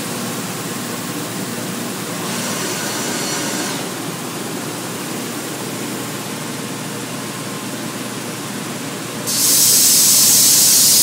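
Steady machine noise in a woodworking shop. A brief hiss comes about two seconds in, and about nine seconds in a much louder steady hiss starts and keeps going.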